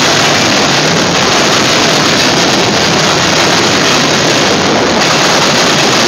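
Freight train of tank cars and covered hoppers rolling past close by: a loud, steady noise of steel wheels running on the rails.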